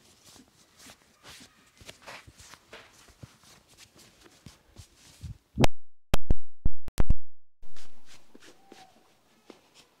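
Massage strikes with the hand on a man's back through his shirt: a quick run of about six sharp, loud smacks about five and a half seconds in, with soft rubbing of hands over cloth before and after.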